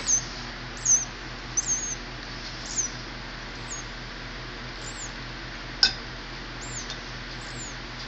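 Rescued nestling bird peeping: short, very high, thin chirps repeated about once a second, the begging calls of a baby bird at feeding time. A single sharp click a little before six seconds in.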